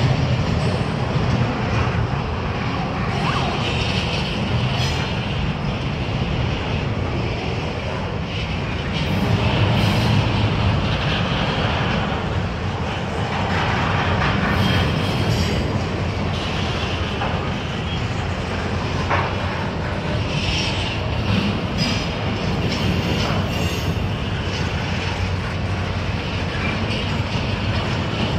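Double-stack intermodal freight train passing: steady rumble of the well cars' steel wheels rolling on the rails, with a high wheel squeal coming and going several times.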